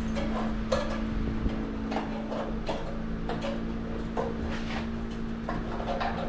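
Light, irregular metallic clicks and taps, about two to three a second, as a thin grounding wire is handled and worked against a steel mounting channel. A steady low hum runs underneath.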